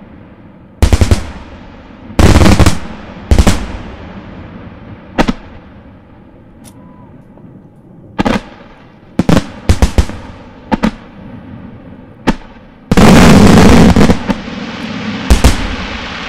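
Fireworks display: aerial shells bursting with sharp, loud bangs at irregular spacing, each trailing off in echo. About two-thirds of the way through comes a dense, continuous roll of bangs lasting about a second, then a couple more single bangs.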